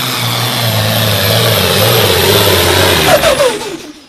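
Pulling tractor's diesel engine running loud and hard on the track, its pitch dropping about three seconds in as the throttle comes off, then fading away.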